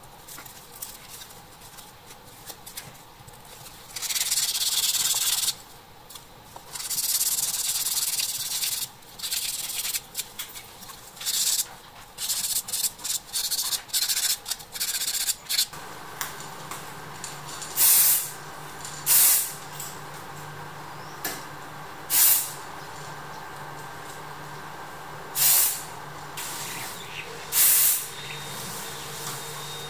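Rubbing and rasping noises come first, with two longer hisses, as small metal toy parts are handled and prepared on paper. Later an aerosol spray-paint can sprays in about five short bursts, each under a second.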